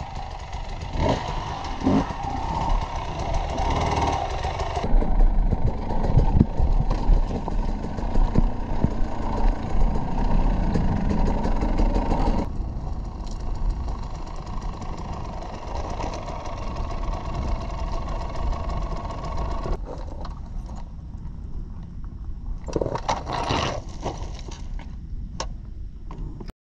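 Enduro motorcycle engine running under the rider, its revs rising and falling as it climbs over rocky ground, with scattered knocks and clatter from the rocks. The sound changes abruptly about halfway through and again near the end, where the engine runs more quietly before cutting off.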